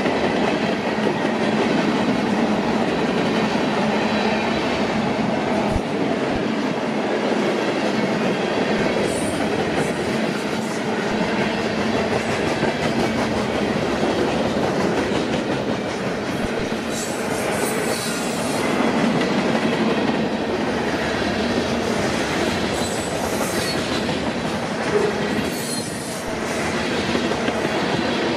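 Freight cars of a mixed freight train rolling past close by: a steady rumble and clatter of steel wheels on the rails, with a few brief, faint high squeals from the wheels.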